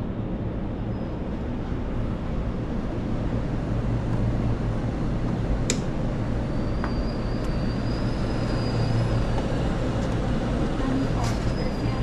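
Steady low hum of commercial kitchen and ventilation machinery in a pizza shop, with two sharp clicks, one about halfway and one near the end, and a faint high whine that comes and goes.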